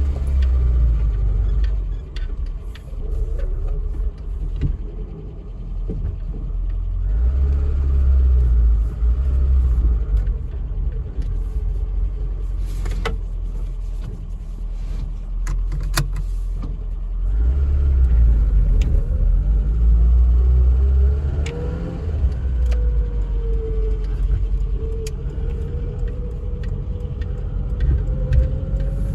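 Ford Escort Mk3's 1.1-litre Valencia OHV engine running while the car is driven and worked through the gears, heard from inside the cabin. Low rumble swells several times, and a faint tone rises and falls in the second half.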